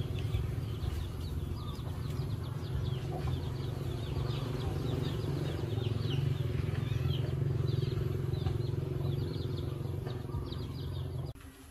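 A steady low engine drone with many short, high, falling bird chirps over it; both cut off suddenly near the end.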